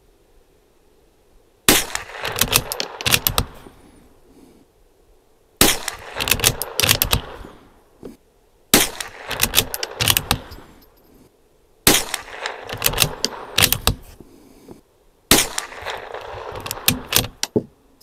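Five shots from a Bergara B14R bolt-action .22 LR rifle, spaced about three to four seconds apart, each a sharp crack followed by clatter and ringing. The rifle is firing vintage Remington Target ammunition, which runs at over 1200 feet per second.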